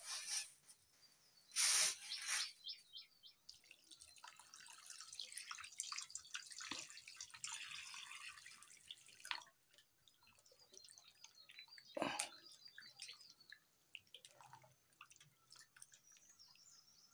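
Water poured from a steel pot over raw beef in a steel bowl, splashing and trickling, during a long stretch in the middle. It comes after two short, loud rushing sounds near the start, and there is one sharp knock about twelve seconds in.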